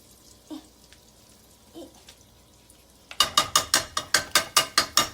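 A rapid, even run of about ten sharp mechanical clicks, about five a second, starting a little over three seconds in.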